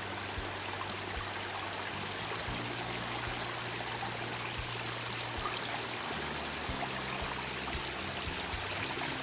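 Mountain stream rushing steadily over rocks, heard close by.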